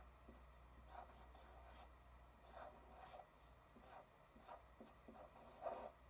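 Blue felt-tip marker writing letters on graph paper: a series of short, faint scratching strokes, the longest and loudest near the end.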